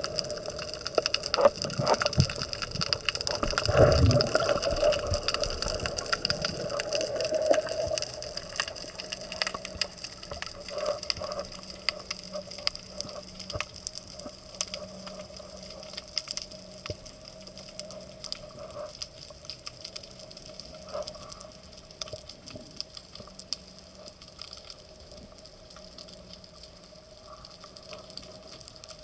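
Underwater ambience: a dense, continuous crackle of fine clicks, typical of snapping shrimp on a Mediterranean reef. A louder low rush swells around four seconds in, then the crackle carries on more quietly.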